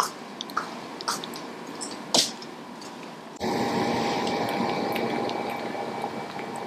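Small wet clicks and faint squeaks from a red toy poodle puppy wriggling under a hand on a fleece blanket, with one sharper click about two seconds in. About three and a half seconds in, the sound cuts abruptly to a louder steady hum with a few constant tones.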